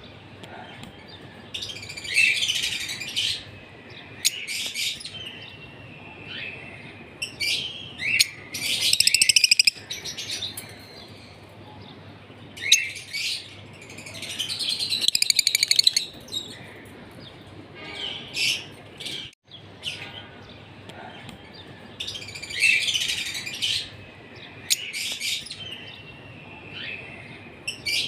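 Pair of lovebirds calling in bursts of rapid, high-pitched chirping every few seconds, over a steady low background noise.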